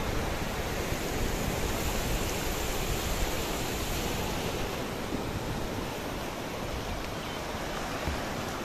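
Strong sea surf breaking and washing up a sandy shore: a steady rushing hiss of waves and foam.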